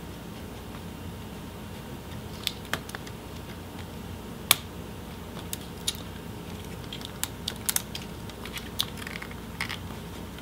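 Scattered light plastic clicks and ticks as an Asus TUF FX504 laptop's motherboard is wiggled loose from its plastic palm rest chassis, with one sharper click about four and a half seconds in and a quick cluster near the end, over a low steady hum.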